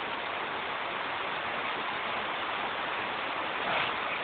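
Steady hiss of heavy rain pouring down.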